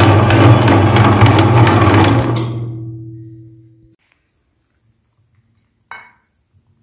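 Electric meat grinder running with an empty hopper, a steady hum under a rattling clatter. About two seconds in it is switched off and winds down, going silent by about four seconds, and a single small click follows near the end.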